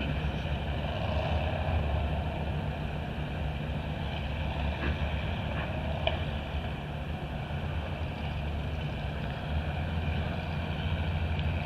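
Steady low engine rumble, with a few faint ticks and clinks over it.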